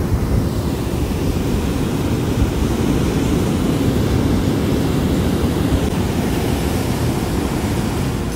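Ocean surf breaking and washing up over wet sand in a steady wash, with wind rumbling on the microphone.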